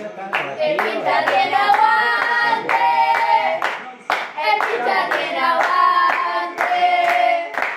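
A small group of young football fans sings a chant together while clapping along in rhythm, about two claps a second. There is a short break in the singing about four seconds in.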